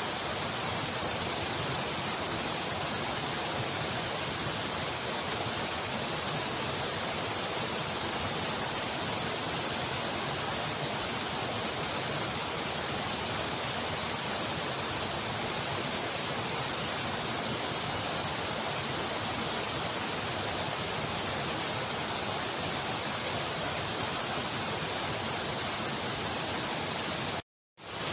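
Waterfall running loud and steady, an even rush of falling water with no change in it; it cuts out for a split second near the end and comes back.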